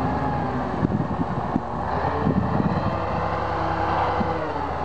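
Truck-mounted crane's engine running steadily, powering the crane's hydraulics as the boom lifts a heavy load; its pitch dips slightly near the end.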